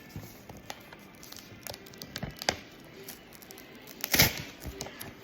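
Paper wrapper of a chocolate bar crinkling and rustling as it is handled, with scattered light crackles and a louder crinkle about four seconds in.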